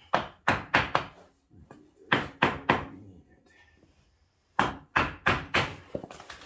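Hammer blows on a wooden block held against an ATV's front brake drum, tapping the drum onto the hub over freshly adjusted brake shoes. The sharp blows come in three quick bursts of about four, three and six strikes, roughly three a second.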